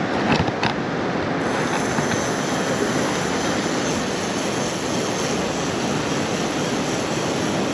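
Steady rush of sea surf and wind on the microphone, with a few light clicks in the first second.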